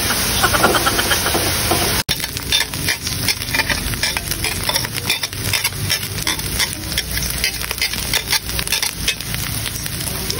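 Ground meat frying and sizzling in a steel wok while a metal spoon stirs it, scraping and clicking rapidly against the pan.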